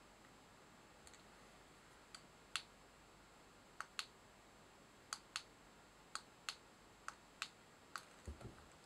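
Light clicks from fly-tying tools being handled, mostly in close pairs about once a second, over near silence; a soft low bump near the end.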